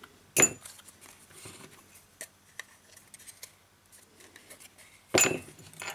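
Handling noise from a smartphone's plastic frame and display module pressed and turned in the hands, with two sharp plastic clacks, one shortly after the start and one near the end, and faint clicks and rubbing between.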